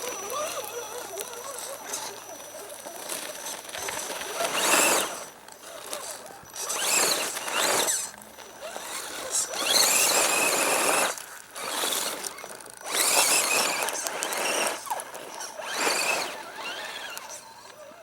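Axial SCX10 RC crawler's electric motor and geartrain whining in repeated bursts of throttle, each a second or two long, the pitch rising and falling as it drives.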